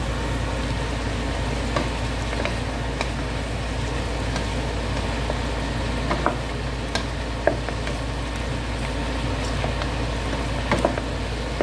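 Pork bone pieces sizzling as they fry in oil in a nonstick pan, with a few sharp clicks as a wooden spoon turns them against the pan. A steady low hum runs underneath.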